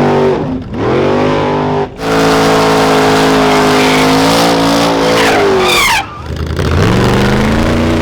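Hot rod's engine revving hard at the drag strip. It is held at high revs, cut off sharply three times and climbing straight back up, with tyres squealing shortly before the last cut. This is typical of a burnout before a launch.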